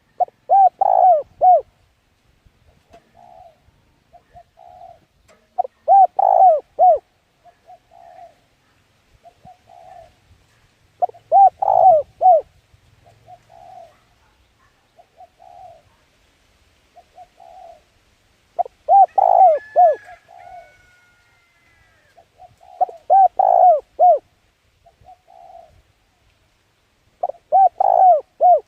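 A dove cooing: loud phrases of three or four low coos every five seconds or so, with softer single coos in between.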